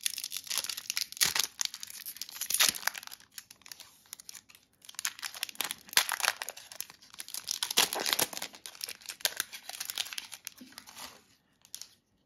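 Foil wrapper of an Upper Deck 2021-22 Series 1 hockey card pack being torn open and crinkled in the hands, in crackling spells with a short lull about four seconds in.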